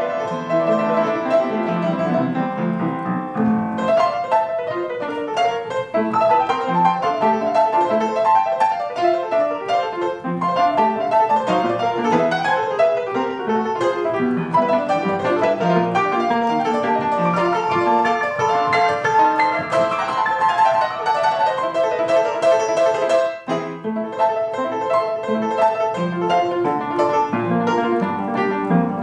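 Solo piano music: a melody over lower accompanying notes, with a momentary break about two-thirds of the way through.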